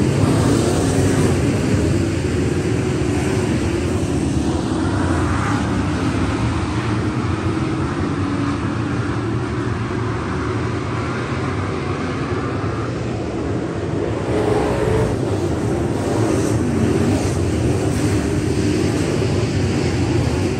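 Engines of a pack of dirt-track stock cars racing around the oval: a loud, continuous drone of several engines that swells and fades as the cars lap, growing louder again from about 14 seconds in.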